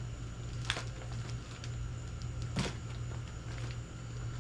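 Accessories and packaging being handled during an unboxing: a sharp click, then a second, fuller rustle about two seconds later, over a steady low hum.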